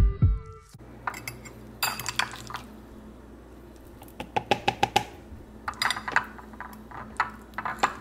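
Metal fork clinking and scraping against a ceramic bowl and plate as mashed avocado is scooped and spread onto a tortilla wrap, in short runs of quick clinks.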